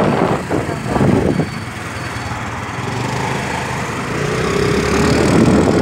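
A small engine running close by on a road, with a steady low rumble and a faint engine note that rises slowly near the end.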